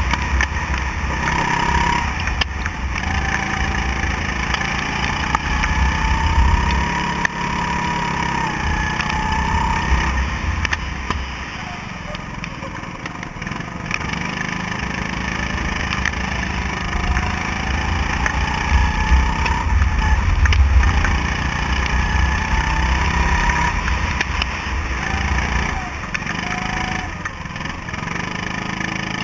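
Go-kart engine running under load from onboard, its pitch climbing on the straights and dropping into the corners, again and again, over a low rumble that comes and goes.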